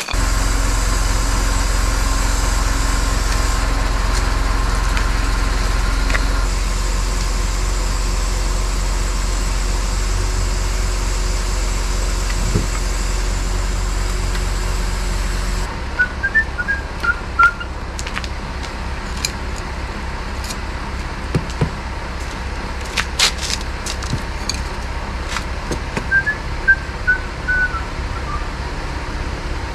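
Truck's diesel engine running steadily to power its loader crane as it lifts cable drums. The engine note changes suddenly about halfway through, and scattered metallic knocks and clanks follow.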